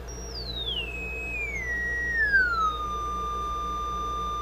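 Sine-wave test tone from an audio signal generator, played through the Zenith 4-B-231's speaker and its repaired output transformer, turned down in pitch in three steps from a high whistle to a lower tone that holds to the end, over a faint steady hum. It shows the repaired transformer passing the signal.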